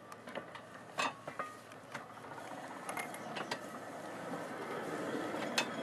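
Hand-pumped railway handcar getting under way: its lever and gear mechanism clanks and knocks as it is pumped, over a rolling noise from the wheels on the rails that grows steadily louder.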